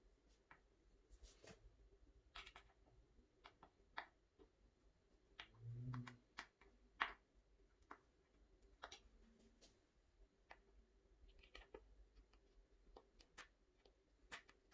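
Faint, scattered clicks and ticks of small metal connector screws being handled and screwed into a particleboard furniture panel, with a soft thump about six seconds in and a sharper click about a second later.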